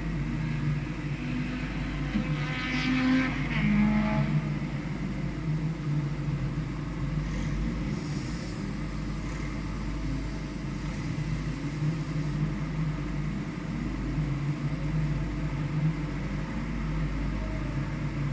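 Car engine running steadily, rising briefly in revs about two to four seconds in.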